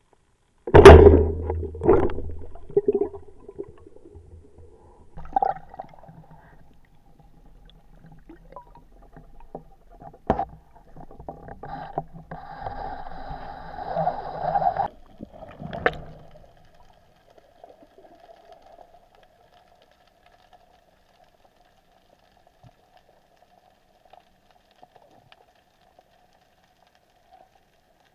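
Underwater sound picked up by a speargun-mounted camera: a sharp loud knock about a second in, then further knocks and a stretch of gurgling, bubbling water noise that cuts off abruptly. A faint steady hum fills the second half.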